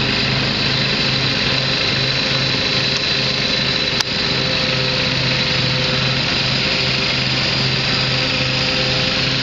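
Jacobsen 14 LT garden tractor's engine running steadily while mowing, with the mower deck engaged. A single sharp click about four seconds in.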